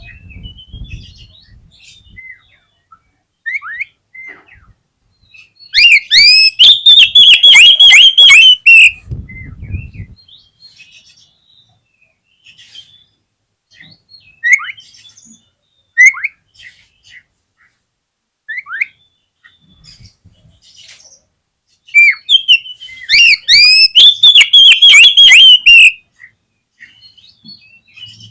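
Oriental magpie-robin singing: two loud bouts of rapid, repeated whistled notes, each about three seconds long, with scattered single whistles and chirps between them.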